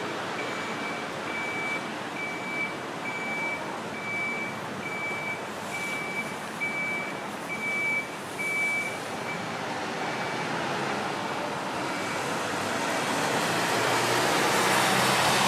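A steady rush of wind and jet aircraft noise, growing louder near the end as an aircraft comes closer. Over it, a reversing alarm gives short high beeps about twice a second, fading out a little past halfway.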